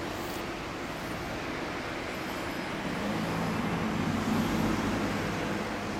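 2007 Honda CB1300 Super Touring's 1,284 cc inline-four idling through a Moriwaki slip-on muffler, steady, swelling slightly from about three seconds in and settling back near the end.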